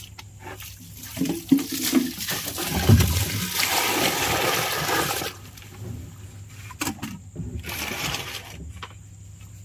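Water poured from a container into a hole in the soil, splashing and rushing for about three seconds, with a shorter, weaker splash near the end.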